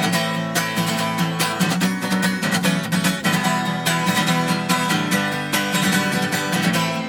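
Acoustic guitar strummed in a steady, driving rhythm: the instrumental intro of a song, before the singing starts.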